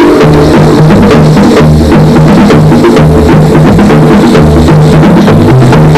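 Background music: a drum kit playing a steady beat over low bass notes.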